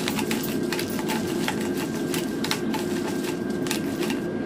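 Hand-twisted four-peppercorn grinder cracking peppercorns: a quick, irregular run of dry clicks that stops near the end. Under it, a dual-basket air fryer's fan runs with a steady hum while it cooks.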